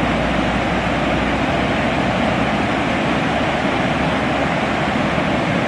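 Flood-swollen river rushing through whitewater rapids: a steady roar of churning water.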